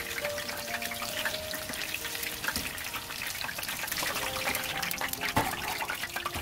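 Battered chive fritters sizzling and crackling as they deep-fry in hot oil.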